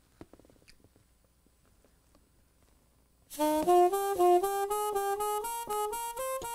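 Saxophone played inside a sound-proofing practice mute, starting suddenly about three seconds in with a quick run of stepping notes, after a few faint handling clicks.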